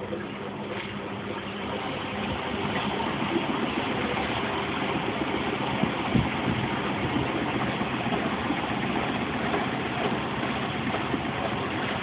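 Zanussi Z630INOX front-loading washing machine running its intermediate spin at 550 rpm after the fourth rinse: a steady mechanical whir that grows a little louder over the first few seconds, then holds level. There is a single low knock about six seconds in.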